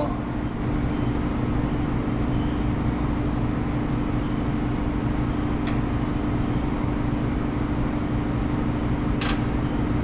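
Steady machine hum with a constant low drone tone. Two faint light clicks, one a little past halfway and one near the end, as small brake parts are handled.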